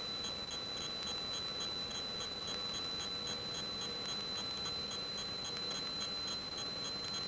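A steady high-pitched whine with a faint regular ticking, about three to four ticks a second, over a low hiss. This is electrical noise on the cockpit audio of a Piper Cherokee on its takeoff run, with little engine sound coming through.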